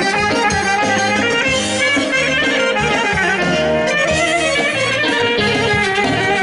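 Instrumental passage of a traditional Macedonian folk song played by a folk band: wind instruments lead the melody over a steady drum beat.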